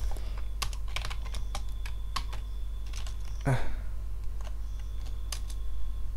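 Typing on a computer keyboard: irregular keystrokes, over a steady low hum.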